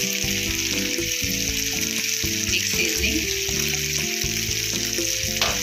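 Sauce and chopped vegetables sizzling in a hot non-stick kadai while a wooden spatula stirs them, over steady background music.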